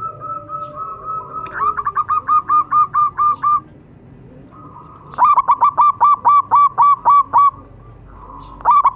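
Zebra dove (perkutut) song: runs of short, evenly spaced staccato coos, about five a second, in two full phrases with a third starting near the end. The first phrase is preceded by a steady high tone.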